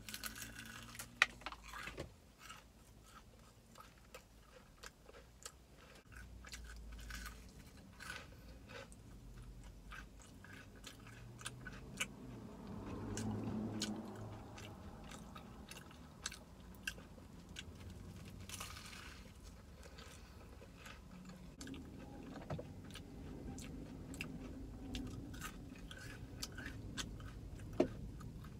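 A person biting into and chewing a crispy fried chicken sandwich close to the microphone: many sharp crunches of the breading through steady chewing, with the sharpest crunches about a second in and near the end.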